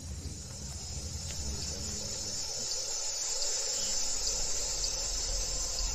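Night insect chorus: a steady, high-pitched chirring of many insects, over a low rumbling background that slowly grows louder.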